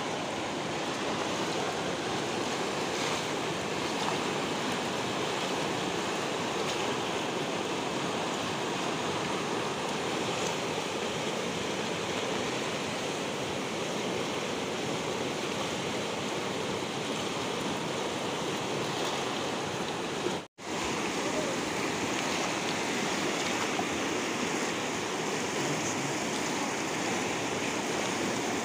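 Steady rushing of a fast-flowing, swollen river, with an even hiss and no separate events. The sound cuts out for an instant about two-thirds of the way through.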